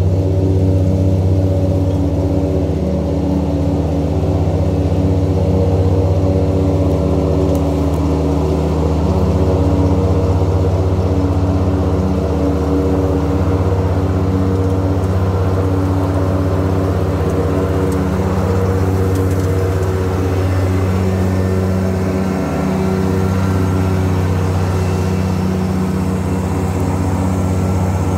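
John Deere Z994R ZTrak zero-turn mower's diesel engine running steadily at working speed while it mows grass, a constant even drone throughout.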